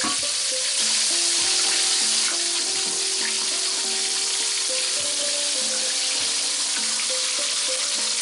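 A whole floured red tilapia deep-frying in a wok of hot oil: a steady, dense sizzle of bubbling oil. Background music plays underneath.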